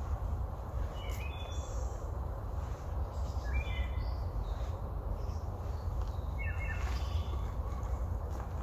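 Three short, high chirping calls from a small animal, each a quick run of notes stepping down in pitch, about every two and a half to three seconds, over a steady low rumble.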